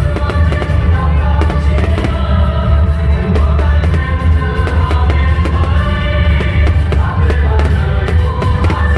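Loud music with a heavy bass, over which fireworks go off with frequent sharp cracks and bangs.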